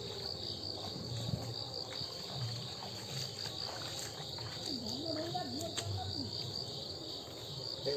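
Night insects chirring steadily, a continuous fast pulsing trill. Faint voices can be heard about five seconds in.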